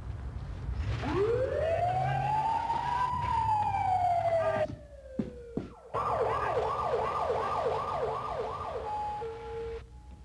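Police car siren winding up into a long wail that peaks and slowly falls, then, after a brief break, switching to a fast yelp of about three to four sweeps a second.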